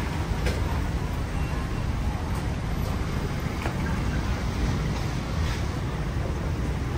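Steady city street traffic noise: a low rumble with a hiss above it, and a few faint clicks.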